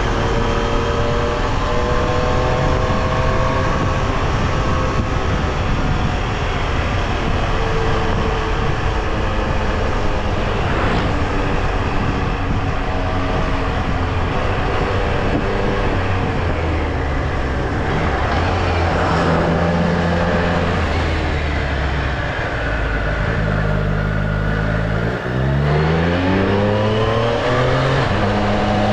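Triumph Street Triple R's three-cylinder engine under way, its note rising and falling with throttle and gear changes. About 25 seconds in it drops briefly, then climbs steeply in pitch as the rider opens the throttle.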